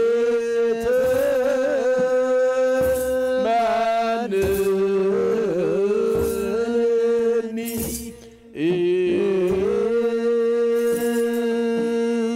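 Ethiopian Orthodox wereb hymn: a group of men chanting together in long held, slowly stepping notes. The chant breaks off briefly about two thirds of the way through for a breath. A kebero drum is struck now and then underneath.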